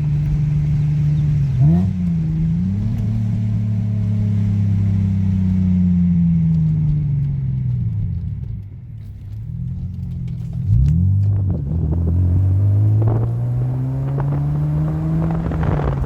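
2006 Hyundai Tiburon's 2.7-litre V6 under way after a misfire fix: the engine note breaks sharply twice, as with gear changes, falls away slowly for several seconds, then climbs steadily again as the car accelerates.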